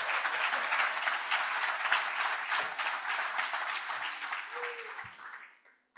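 Audience applauding, fading out over the last second or so.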